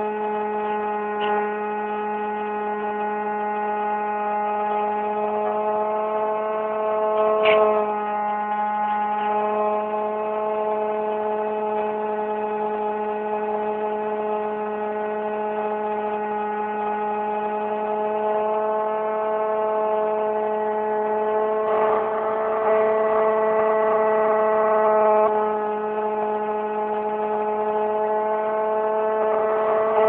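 Electric motor and pusher propeller of an Easy Star RC plane, heard from a phone riding on board: a steady droning hum made of several even tones, its pitch drifting slightly as the throttle changes. A short rush of air about two-thirds of the way through.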